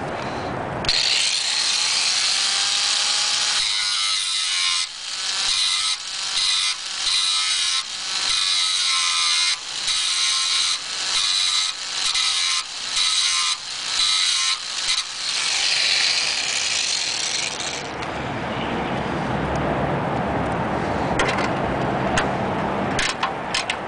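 Small corded grinder grinding down a bolt end on a steel seat bracket so its nut can be undone. It makes a steady high-pitched whine that dips again and again as it is pressed on and eased off the metal, then stops about eighteen seconds in. A few light metallic clicks follow near the end.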